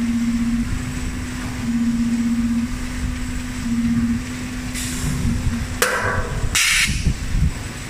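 Cylinder flanging machine running with a steady hum that comes and goes. In the second half come a sharp clank and three short hisses of air, the loudest near the end, as its pneumatic cylinders vent.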